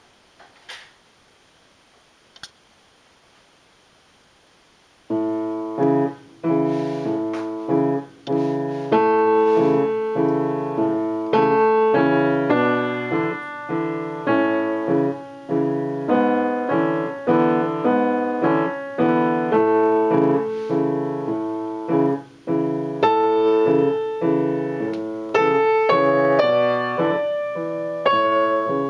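Yamaha piano playing a waltz in chords and melody, starting about five seconds in after a few faint clicks.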